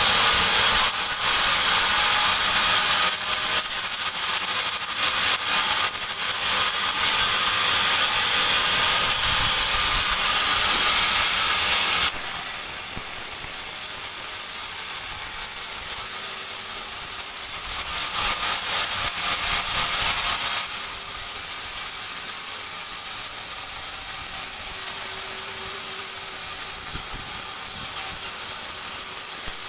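Sawmill band saw cutting through a teak balk: a loud, high hissing rasp of the blade in the wood for about twelve seconds, then the machine running quieter, with a second, shorter cut a little past the middle.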